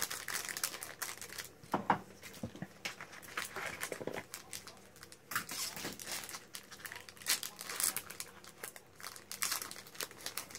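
Foil booster pack wrapper crinkling and tearing in the hands as it is opened. Irregular crackles run throughout, with a few louder rips near two seconds in and around eight seconds.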